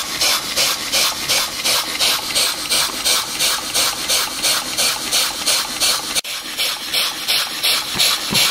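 Large 1950s Polish school model steam engine running on compressed air, its exhaust chuffing evenly at about three to four puffs a second, held at a steady speed by its centrifugal governor. The chuffing breaks off for a moment about six seconds in.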